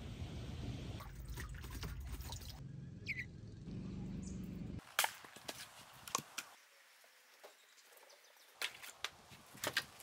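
Steady rain with a short rising bird chirp, then the rain sound stops and a run of sharp wooden knocks follows: firewood being split with an axe on a chopping block and split logs knocking together as they are stacked. The loudest knock comes about five seconds in.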